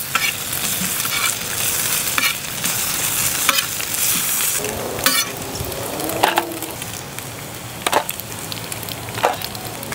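Bacon sizzling steadily on a hot steel flat-top griddle, with scattered scrapes and taps of a metal spatula on the steel as the strips are turned, the sharpest about five and eight seconds in.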